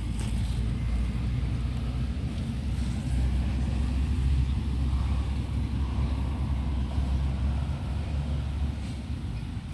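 Low rumble of road traffic, swelling for a few seconds in the middle as a vehicle passes.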